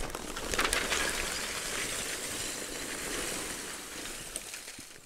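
Royal Oak hardwood lump charcoal being poured out of its paper bag onto a pile, a continuous clatter of many small chunks clinking together. It dies away near the end as the bag empties.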